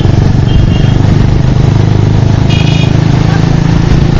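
Small motorcycle engine running steadily while riding in traffic. Two short high-pitched beeps cut in, about half a second in and again about two and a half seconds in.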